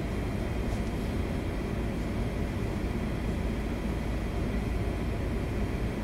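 Steady low rumble with an even hiss, the machinery drone of a 1,000-foot lake freighter underway heard inside its wheelhouse.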